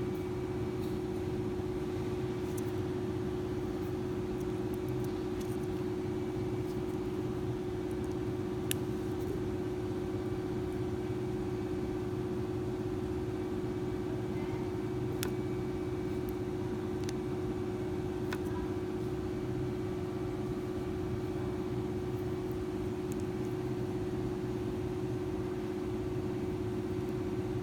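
A steady machine hum at one constant pitch, with a few faint sharp clicks about nine, fifteen and eighteen seconds in.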